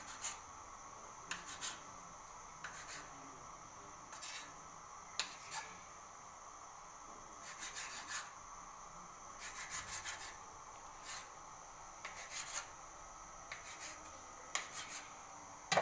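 Kitchen knife cutting a log of bread dough into pieces, the blade scraping and tapping on the stone countertop in short, irregular strokes, some in quick clusters. A faint steady high-pitched hum runs underneath.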